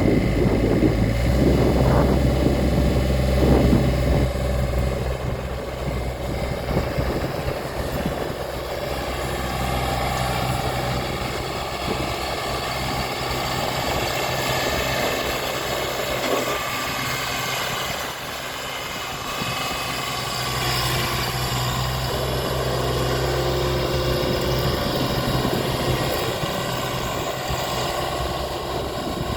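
Engine of a 2021 Ditch Witch SK800 stand-on skid steer running steadily. Its low hum is heavier for the first several seconds and again about two-thirds of the way through.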